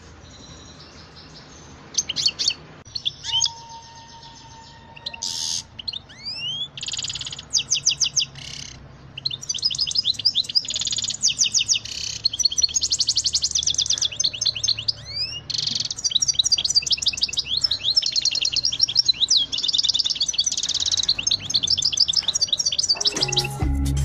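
A finch singing a fast twittering song of rapid trills and rising whistles, in short phrases at first and then nearly without a break from about nine seconds in.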